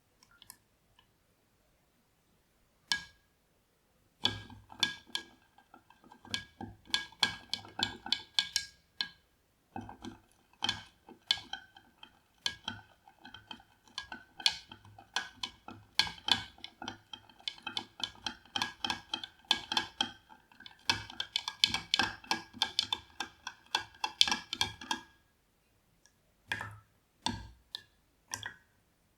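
Close-up water sounds from handling water in a vessel: a dense, irregular run of small splashes and clinks from about four seconds in to about twenty-five seconds, with the container ringing faintly under them, then a few scattered clinks near the end.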